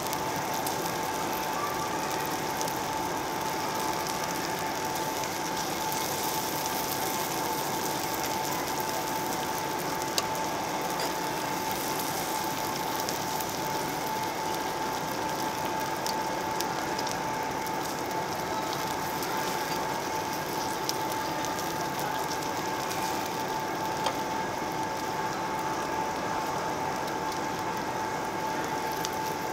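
Pork belly sizzling on a round slotted grill plate, the fat spitting in a dense, steady crackle, with a couple of sharper clicks and a thin steady hum underneath.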